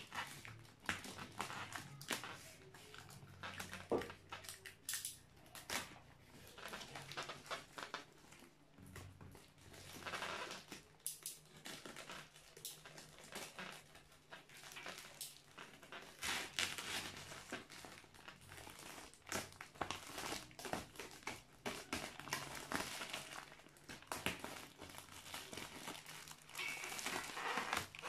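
Packaging of a new circular saw being opened and handled by hand: irregular crinkling and rustling with scattered scrapes and taps, typical of cardboard and wrapping being pulled apart.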